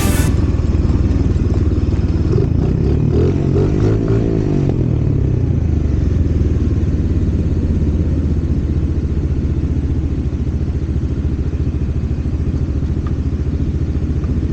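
A vehicle engine running steadily on the move: a low, even rumble. For a couple of seconds a few seconds in, its pitch rises and falls.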